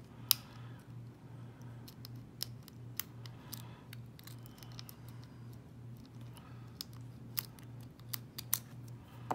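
Lock pick and tension wrench working in the pin-tumbler core of a US Corbin padlock: scattered light metallic clicks and scrapes, the loudest about a third of a second in, over a low steady hum.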